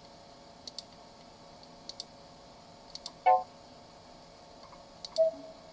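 Mac OS 9 system alert sounds being previewed: quick pairs of mouse clicks, then two short pitched alert sounds, one a little over three seconds in and a shorter tone near the end.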